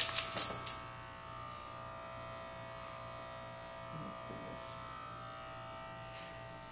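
Electric hair clippers running with a steady buzz. During the first second there is a louder, rasping burst as the blades cut along the back of the neck, and then the buzz runs on evenly.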